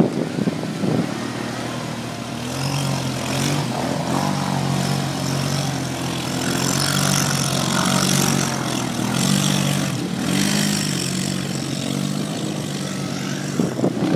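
ATV engine running, its pitch steady for several seconds and then rising and falling a little as the throttle changes, over a hiss of wind and terrain noise.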